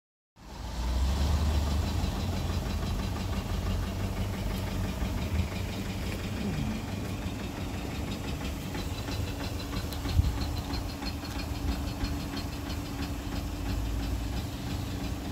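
Toyota 1KD-FTV 3.0-litre four-cylinder turbo-diesel idling steadily with diesel clatter while an induction decarbon cleaner is fed through its intake. The sound cuts in about half a second in, with a single sharp knock about ten seconds in.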